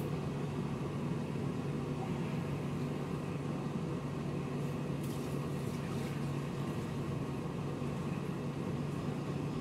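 A steady, even low mechanical hum, like a motor or fan running.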